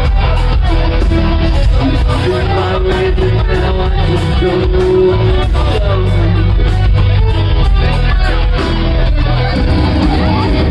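Rock band playing live at full volume: distorted electric guitars, bass and drums keeping a steady beat, heard from within the audience.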